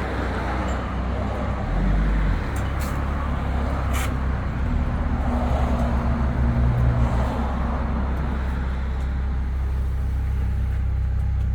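A motor vehicle's engine running steadily with a low rumble, with a few light clicks over it.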